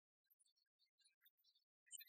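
Near silence, with faint scattered high-pitched blips.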